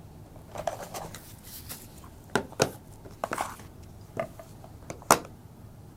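Small hard plastic parts and their packaging being handled and set down on a table: a handful of sharp clicks and knocks, the loudest about five seconds in.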